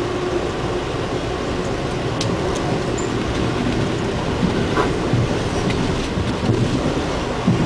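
Amtrak Silver Meteor passenger train running at speed, heard from inside the coach: a steady rumble of wheels on rail with a few faint clicks and knocks.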